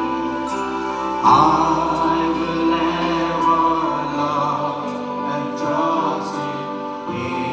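Church music: voices singing over steady held chords, with a voice entering about a second in.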